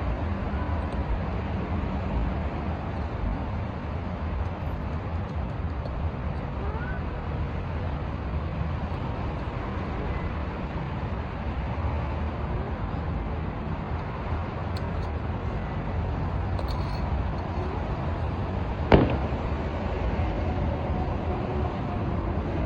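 Steady low rumble of outdoor background noise, with one sharp click late on.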